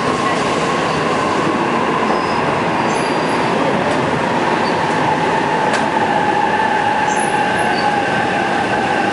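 E655 series 'Nagomi' electric train rolling slowly into a platform as it brakes to a stop: a steady rumble from the passing cars, with a high tone that sinks gently in pitch as the train slows.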